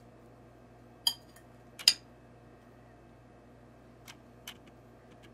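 Metal spoon clinking against a dish while spooning potato-and-pea filling into a samosa cone: two sharp clinks close together about a second in, then two fainter taps near the end.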